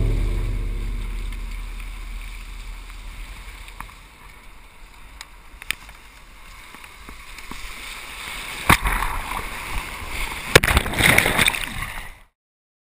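Water rushing and splashing around a double surfski in breaking surf, starting with a heavy low rumble that fades over the first few seconds. Loud splashes come about nine and eleven seconds in as whitewater washes over the boat-mounted camera, and the sound cuts off abruptly near the end.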